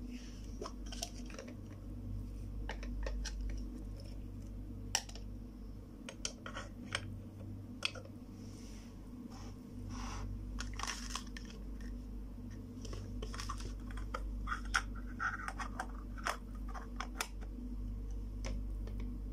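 Small plastic toy pots, clear plastic lids and a toy spoon clicking and clattering as they are handled and set on a plastic toy stove: scattered light knocks and taps over a steady low hum.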